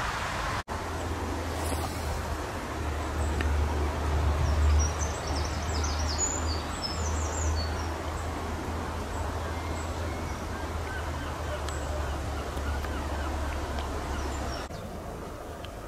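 Outdoor ambience: a steady low rumble under a hiss of noise, with a brief flurry of high chirping bird calls about five to seven seconds in.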